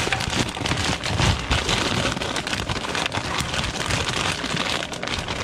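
Frozen Honeycrisp apple wedges tipped from a plastic zip-top bag into a frying pan of hot melted butter: a dense, continuous sizzle and crackle, peppered with many small clicks as the slices land, with the plastic bag rustling.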